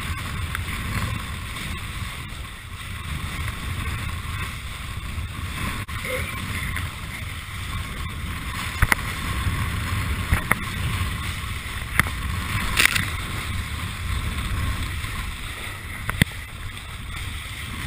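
Steady rush of wind and water from a kiteboard planing fast over choppy sea. Occasional sharp slaps come as the board hits the chop.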